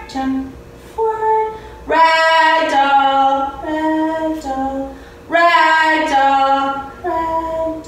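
A woman's voice singing a simple melody without accompaniment, in several phrases of long held notes that step up and down in pitch.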